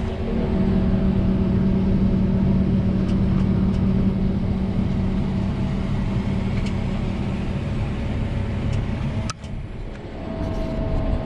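Steady engine drone of a working farm harvest machine heard from inside the cab, with a brief drop in level about nine seconds in.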